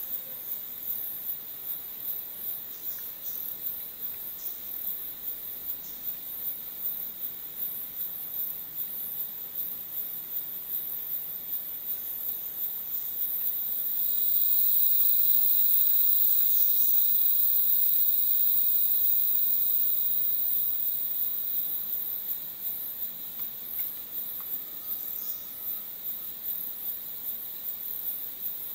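Tropical rainforest insect chorus: a dense, rapid high-pitched pulsing chirr. About halfway through, a second, louder insect buzz swells in and fades out again some eight seconds later.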